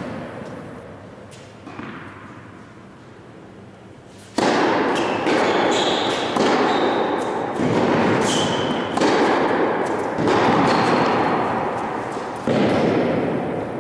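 Tennis balls being struck by rackets and bouncing on an indoor hard court, each hit ringing out in a long echo through the large hall. After a quieter start the impacts come about once a second, with a few short high squeaks, sneakers on the court.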